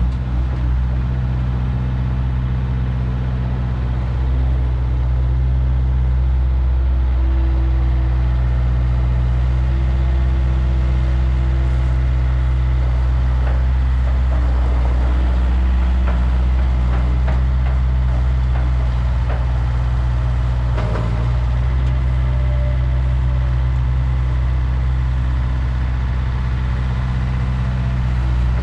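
2007 Bobcat S150 skid steer's diesel engine running steadily, with a short knock near the end.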